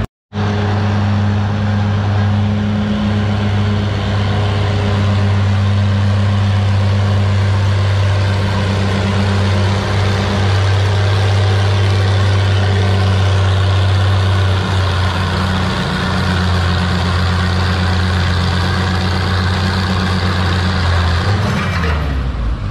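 Oliver 88 tractor's six-cylinder engine running steadily at high revs under load, pulling a weight-transfer sled. Near the end the engine note falls as it throttles down at the end of the pull.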